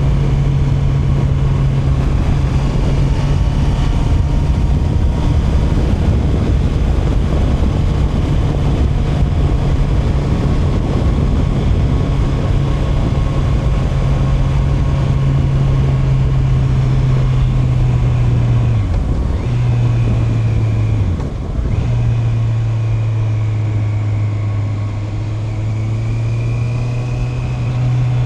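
Honda CB650R's inline-four engine running steadily under way, with wind and road noise. About two-thirds of the way through the engine note breaks twice in quick succession, as in quickshifter gear changes, and then runs on at a slightly lower pitch.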